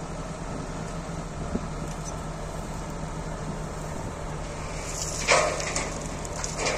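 Heavy road-construction machine's diesel engine running steadily, with one short, loud, noisy burst about five seconds in.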